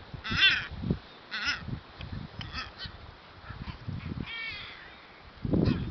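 Seabirds giving harsh, cawing calls in three short bouts, over uneven low rumbling.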